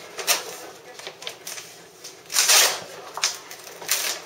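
Sheet of faux stainless-steel vinyl film crackling and rustling as it is handled, pulled and repositioned against a refrigerator door: a few short crinkly bursts, the longest and loudest about two and a half seconds in.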